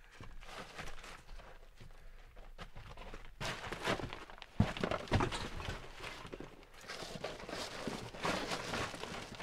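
Footsteps with a few thumps, irregular and sparse at first, then busier and louder from about three and a half seconds in.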